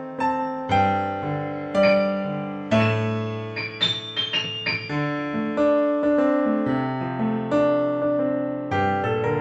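Piano playing chords under a melody, with a quick run of high notes about four seconds in.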